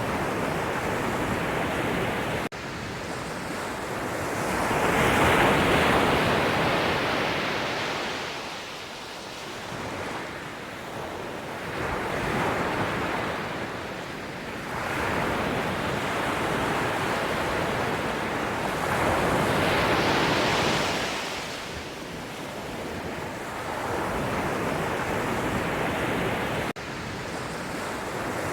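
Sea surf: waves breaking and washing ashore, the rush swelling and ebbing every few seconds, with a brief sudden drop in the sound about two and a half seconds in and again near the end.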